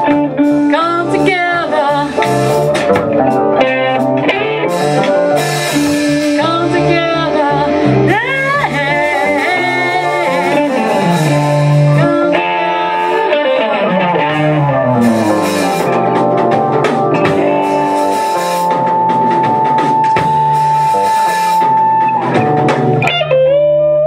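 Live band playing blues-rock: electric guitar over drum kit, bass and keyboard, with notes bending in pitch in the first half and one long held note in the second half.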